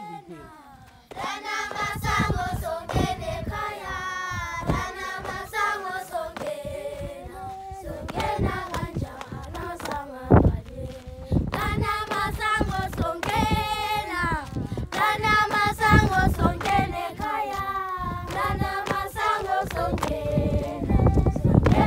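A group of children singing together in chorus, with sharp hand claps or stamps keeping time through the song. The singing starts about a second in.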